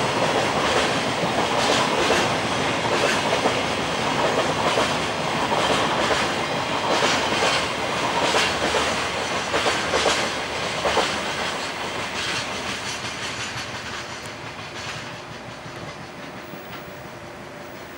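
Container wagons of a freight train rolling past, wheels clattering over the rail joints in a steady clickety-clack. The sound fades away over the last several seconds as the train moves off.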